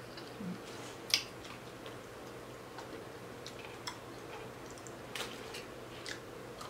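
Quiet eating sounds from someone chewing crispy fried fish and picking at it with her fingers: a few scattered soft clicks, the sharpest about a second in, over a faint steady hum.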